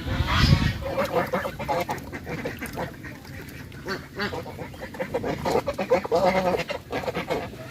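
Domestic goose giving loud honks: one strong call right at the start, then a long run of shorter, rapid honks.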